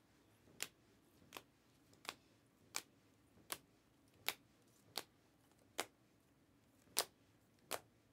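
Trading cards being flipped one at a time off the front of a stack in the hand, each card giving a sharp snap, about one every 0.7 seconds.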